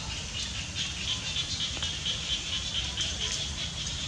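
Outdoor ambience: a high, fast-pulsing chirring repeats steadily in the background over a low rumble.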